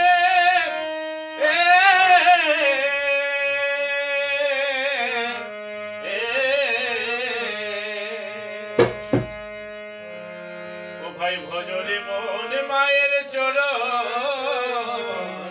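Male voice singing long, wavering held notes of a Jhumur folk song over a steady harmonium drone. Two quick percussion strikes come about nine seconds in.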